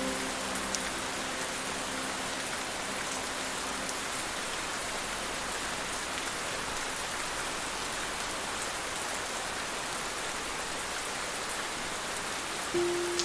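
Steady rain falling, an even hiss with a few sharper drop ticks. Held music notes die away in the first few seconds, and new notes come in near the end.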